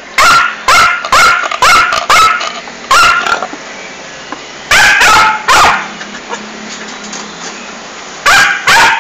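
Small long-haired dog yapping: eleven loud, high-pitched barks in three runs, six in the first three seconds, three more about five seconds in, and two near the end.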